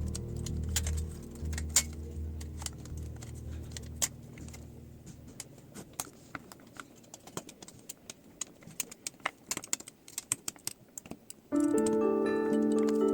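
Irregular sharp clicks and light metallic ticks of small laptop parts and screws being handled during disassembly. Background music fades out over the first few seconds and comes back in abruptly near the end.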